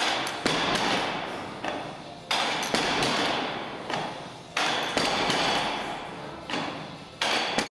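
A 303-pound barbell loaded with bumper plates is set down hard on a lifting platform after each Pendlay row rep. Each landing is a thud with the plates ringing and rattling as it fades, repeating about every two seconds, with lighter clinks in between. The sound cuts off suddenly near the end.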